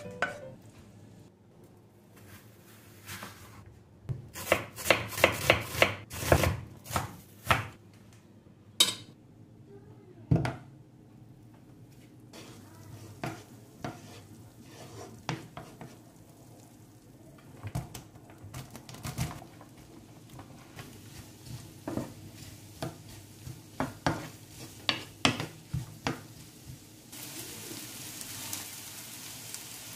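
Kitchen cooking sounds: a quick run of knife strikes on a chopping board a few seconds in, then scattered taps and scrapes of a wooden spatula in a frying pan of melting butter. Near the end, sliced onions are tipped from a knife into the hot pan and a steady sizzle starts.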